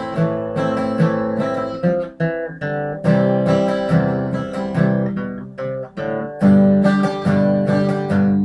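Steel-string dreadnought acoustic guitar strummed in a song's instrumental introduction: a steady rhythm of chord strokes that ring on into one another.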